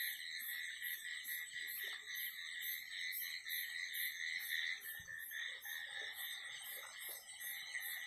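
Night chorus of insects and frogs: a steady shrill trill with a faster, regularly pulsing chirp above it, about four pulses a second.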